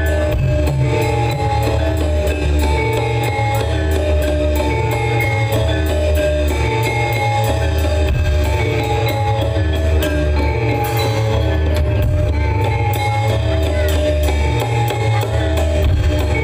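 Javanese gamelan music accompanying a jaran kepang dance: pitched metal mallet instruments play a repeating melody over a steady drum beat, with sharp regular ticks.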